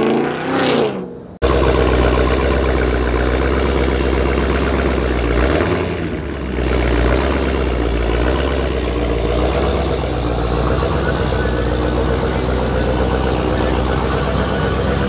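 A passing car's engine falling in pitch, cut off abruptly about a second and a half in; then a Dodge Charger SRT's Hemi V8 idling with a deep, steady rumble, briefly dipping around six seconds in.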